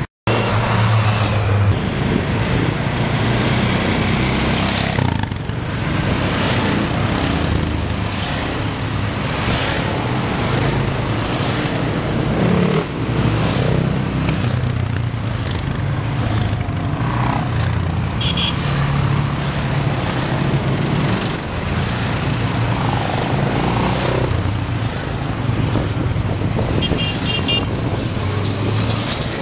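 A convoy of sport quad bikes (ATVs) riding past one after another, each engine swelling and fading as it goes by. The sound cuts out for a moment just after the start.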